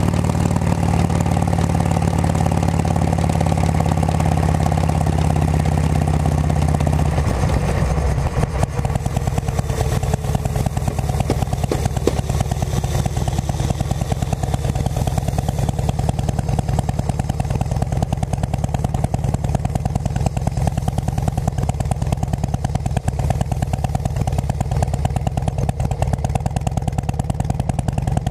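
2006 Harley-Davidson Road King Classic's V-twin engine through aftermarket Cycle Shack pipes, picked up by a helmet-mounted mic while riding. It drones steadily at first, then about seven seconds in the note drops to a slower, pulsing beat that carries on to the end.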